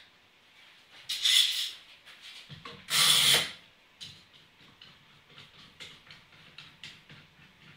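Workshop handling noise: two short, loud scraping rubs about two seconds apart, then a run of light clicks and taps as the wooden workpiece and clamps are moved about.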